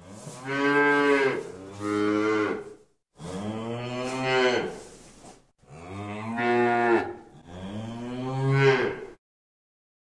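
Cow mooing: a run of about five long, drawn-out moos in quick succession, each one to two seconds long with only brief breaks between them, cutting off abruptly near the end.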